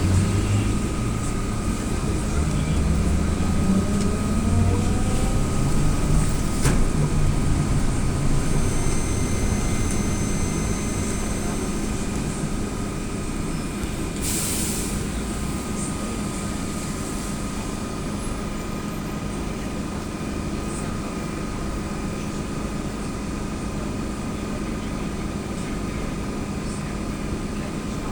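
AKSM-321 trolleybus under way, heard from inside the cabin: the electric traction drive whines up in pitch as it accelerates over the first several seconds, over a steady hum and road rumble. A single click about six seconds in and a short hiss of air about fourteen seconds in.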